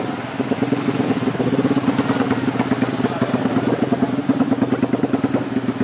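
An engine running steadily, a low pitched rumble with a fast, even pulsing.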